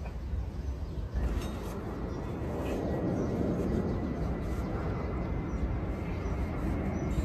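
Low engine rumble of a vehicle, growing gradually louder from about a third of the way in, with a few faint clicks early on.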